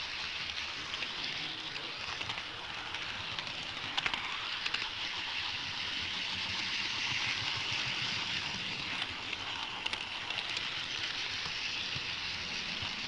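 HO-scale model train running along its track, heard close up from a camera riding on it: a steady hissing rumble of wheels and motor, with a few sharp clicks.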